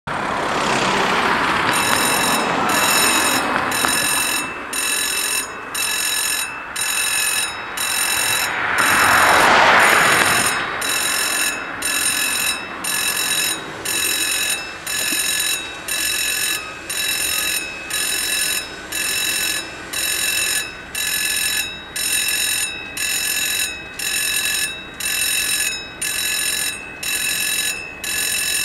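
WSSB level-crossing warning bells ringing in pulses a little more than once a second, each pulse a rapid electric ringing. The bells stop near the end, with the barriers down. A road vehicle passes about nine seconds in, the loudest moment.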